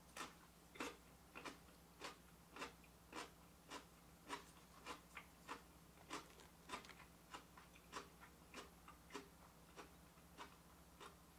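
Faint, evenly spaced ticking, about three ticks every two seconds, over a low steady hum.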